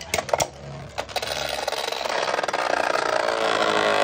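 Two Beyblade tops spinning in a plastic stadium. They knock sharply against each other and the walls in the first second. After that their tips make a steady whirring rattle on the plastic floor that grows louder, with a whine slowly falling in pitch near the end as they lose speed.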